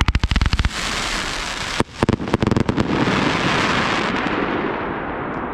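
Fireworks: a rapid string of sharp bangs in the first second, another cluster of bangs about two seconds in, then the dense crackle of a glittering burst that slowly fades.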